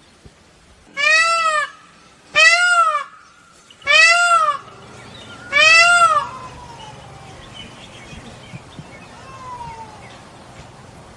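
Peacock calling: four loud, high, wailing calls about a second and a half apart, each about half a second long and rising then falling in pitch, followed by a couple of much fainter, falling calls.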